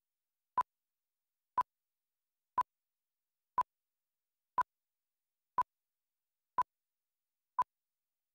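Short electronic beep at one steady pitch, repeating exactly once a second, eight times, with silence in between.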